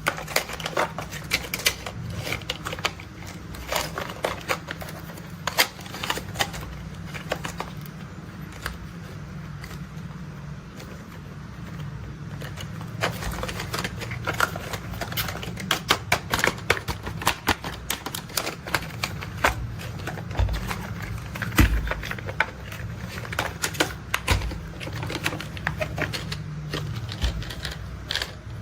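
Irregular, rapid clicking and clattering of plastic toy construction vehicles being handled and worked, over a steady low hum.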